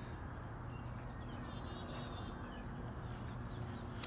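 Quiet outdoor ambience: a steady low hum with a few faint, short bird chirps.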